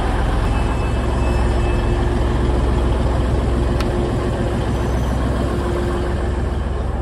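Passenger train standing at a platform with its engines idling: a steady low rumble with a constant hum, and one sharp click a little under four seconds in.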